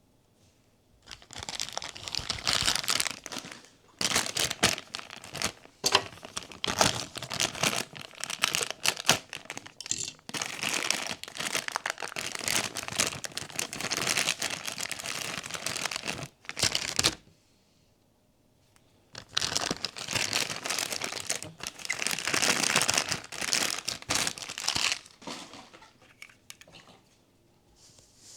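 Blind-box packaging being torn open and handled: dense crinkling and tearing of plastic wrap, in two long stretches with a short pause about two-thirds of the way through.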